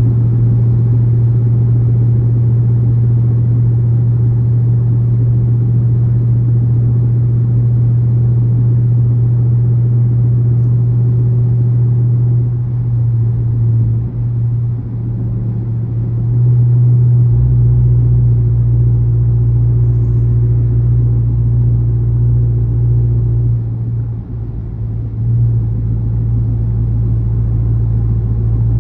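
Dodge Charger R/T's 5.7-litre Hemi V8 with a catless exhaust, cruising with a steady, loud low drone. The note dips and changes briefly a few times, about halfway through and again near the end, as the throttle or engine speed changes.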